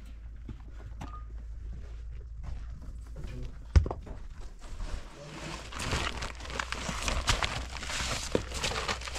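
A single sharp thump a little before halfway. Then, from about the middle on, the crinkling and rustling of a large sack being gripped and handled.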